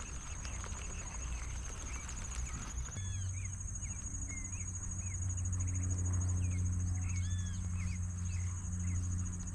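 Outdoor natural ambience: a steady high-pitched trill runs throughout. From about three seconds in, many short chirps repeat over it, along with a low steady hum.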